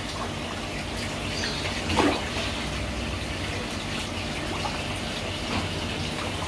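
Water from a small rock waterfall and spout pouring steadily into a garden koi pond, with one short louder noise about two seconds in.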